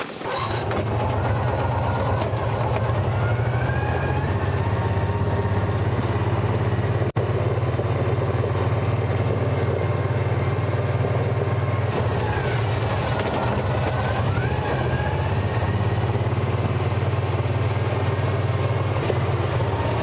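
Small vehicle engine running steadily, with a brief dropout about seven seconds in.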